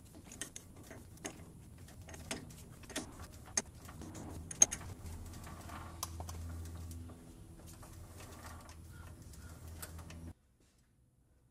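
Faint scattered metal clicks and light knocks as a lathe's four-jaw chuck is turned by hand and adjusted to dial a small part in, over a low steady hum. The sound cuts off to silence about ten seconds in.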